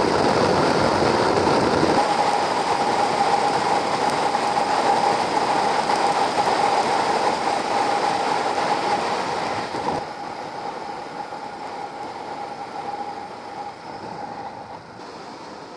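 Wind rush and road noise from a moving Suzuki DR650 dual-sport motorcycle, with a steady whine running through it. The noise drops sharply about ten seconds in and keeps getting quieter.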